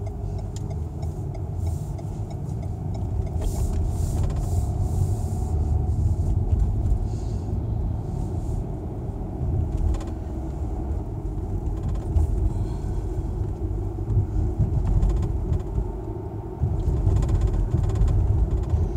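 Inside a moving car's cabin: a steady low rumble of tyres and engine while driving along city streets, dipping briefly near the end before picking up again.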